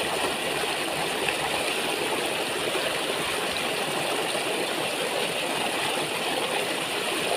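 Small rocky mountain stream rushing steadily over stones.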